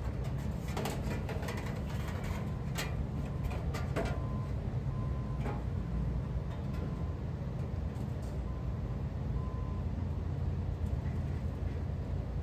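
Scattered clicks and knocks of hand tools and parts being handled against a Bard wall-mount unit's sheet-metal cabinet, several in the first few seconds and fewer later, over a steady low rumble.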